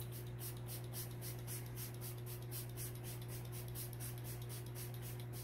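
Makeup setting spray misted from a fine-mist pump bottle: a rapid run of short hisses, about five pumps a second. A steady low fan hum runs underneath.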